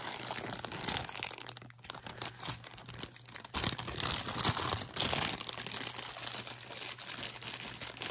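Thin plastic zip-top bags crinkling and rustling as they are handled, in irregular crackles with small clicks.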